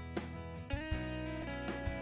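Instrumental intro music with a steady beat and sustained pitched notes.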